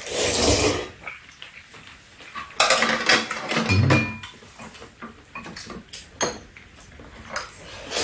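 Two people eating fish cake hot pot: metal spoons and chopsticks clink and scrape against bowls many times. Two longer, louder eating noises come in the first second and again from about three to four seconds in.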